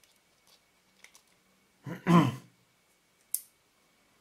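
Faint small clicks of the metal bayonet mount being worked loose from an AF Nikkor 35mm f/2 lens. A short vocal utterance comes about two seconds in. Near the end there is one sharp, bright metallic click as the mount comes free.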